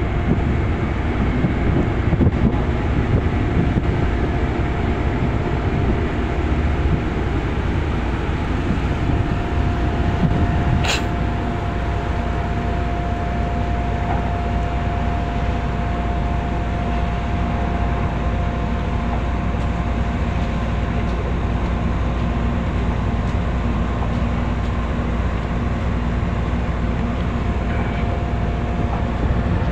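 Tugboat's diesel engines running steadily under load as its fendered bow pushes against a cargo ship's hull: a low, even rumble. A thin steady whine joins it from about nine seconds in, and there is one sharp click about eleven seconds in.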